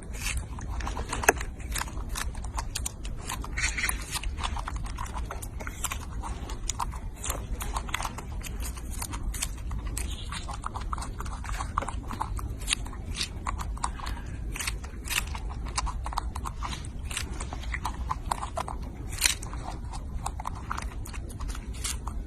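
A monkey chewing and biting a strawberry: a dense run of short smacking and clicking mouth sounds, several a second, over a low steady rumble.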